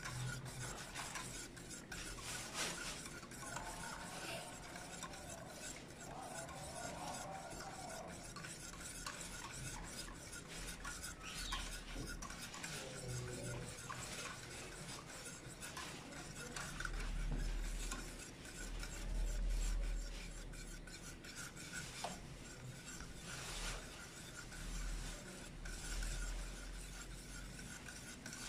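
Wire hand whisk stirring a semolina and milk pudding mixture in a pot on the heat, a continuous scraping and rubbing against the pot as the mixture is kept moving until it boils and thickens. A few duller low thumps come about two-thirds of the way through.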